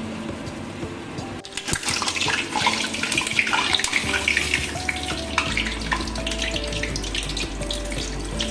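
Battered pakodas deep-frying in hot oil: a dense crackling sizzle that swells up about two seconds in and keeps going. Background music plays underneath.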